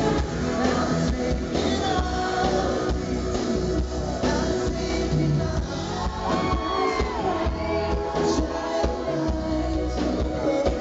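Live pop song: a male lead singer sings into a microphone over the band's backing, with a backing singer.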